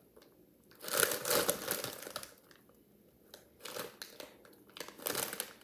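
Crinkling of a plastic snack bag of Cheetos Horneados Crunchy Flaming Hot, handled or rummaged in: a long rustle starting about a second in, then two shorter ones.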